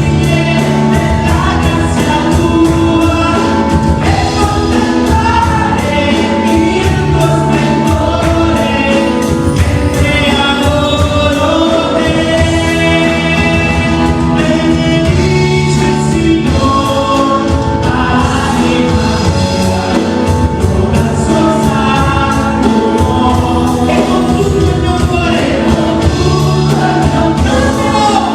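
Christian worship music: several voices singing together over a band, with drums keeping a steady beat.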